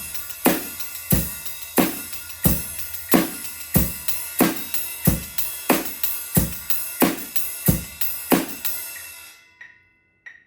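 Drum kit playing a rock money beat: bass drum on 1 and 3, snare on 2 and 4 and quarter notes on the hi-hat, under a ride cymbal pattern, a strong stroke about every two-thirds of a second. The playing stops about 9 s in and the cymbals ring out, followed by two metronome clicks.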